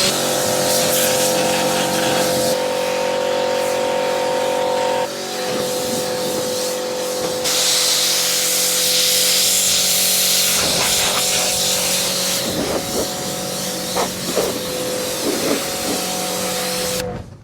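An engine running steadily under a hissing noise, dropping slightly in pitch about five seconds in, with a few light clicks later on. It cuts off abruptly near the end.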